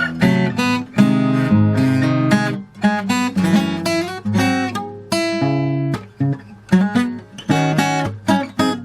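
Morris W20 acoustic guitar being played, a continuous run of picked notes and chords, each ringing briefly before the next.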